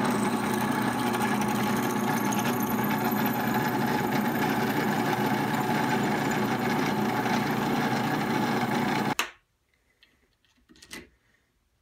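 Benchtop drill press running steadily as the bit drills a hole into a block of aluminium square stock. It stops abruptly about nine seconds in, and a few faint clicks follow.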